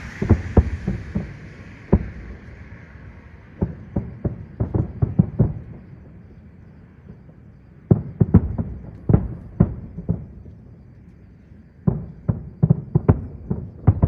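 Aerial fireworks shells bursting: sharp booms in rapid clusters, four volleys separated by brief lulls.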